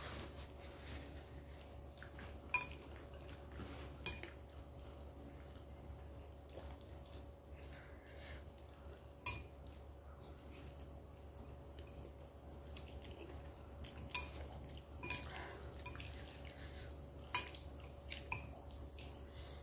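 Chopsticks and a metal spoon clinking sharply against a ceramic noodle bowl, several separate clinks with a short ring, between quieter slurping and chewing of noodles. A steady low hum sits underneath.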